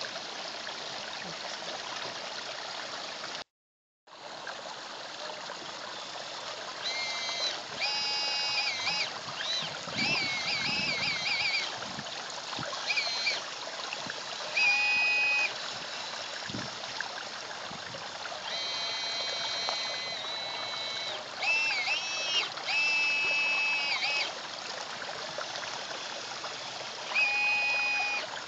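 Steady running water trickling into a garden pond, with a radio-controlled CAT excavator's electric motors whining in about a dozen short bursts, each up to a second or so long, as its boom and arm move. The sound cuts out for about half a second near the start.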